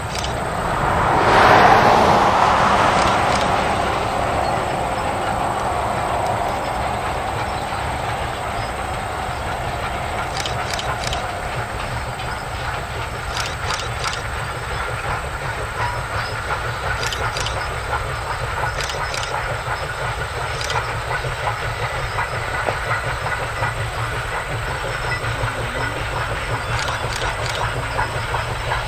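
East Broad Top #15, a 1914 Baldwin 2-8-2 Mikado steam locomotive, working a freight train past at a distance: a steady low rumble of the engine and cars. A louder swell of sound about a second in fades over the next few seconds, and a few sharp clicks are scattered through.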